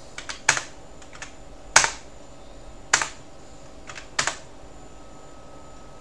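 Computer keyboard: about five single key presses spaced a second or so apart, navigating a text-mode menu.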